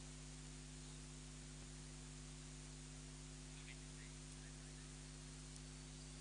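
Near silence: a faint, steady electrical mains hum with hiss, with no other sound standing out.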